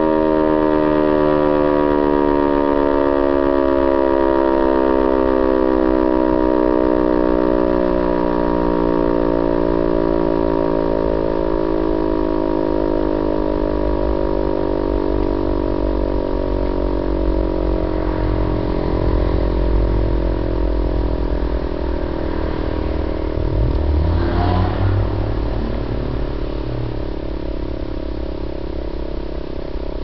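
E57 electric civil-defence siren winding down at the end of its test-alarm signal: several tones sounding together fall slowly in pitch and the sound slowly fades. In the second half a passing motor vehicle adds a low engine rumble, with a brief rising rev a little past the middle.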